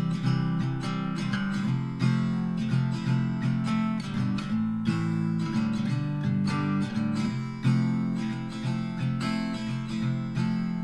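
Background music: a strummed acoustic guitar playing a steady, even rhythm.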